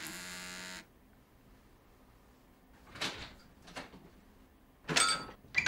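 Mobile phone vibrating on a bedside table with a steady buzz for under a second at the start, stopping as it is picked up. Then a few short scuffs and knocks of movement, the loudest about five seconds in.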